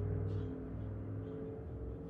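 Quiet background music: a low, steady drone of several held tones.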